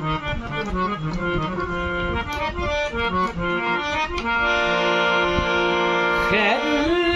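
Harmonium playing an instrumental interlude: quick runs of short reed notes for the first few seconds, then sustained held notes. Near the end a singer's voice slides up into a wavering held note.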